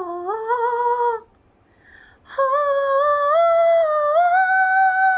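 A woman singing sustained vowel notes in a light falsetto. The first note dips and stops about a second in. After a short breath, a long note steps upward twice and is held. This is a singer testing her upper range as her voice recovers after thyroid surgery and neck dissection.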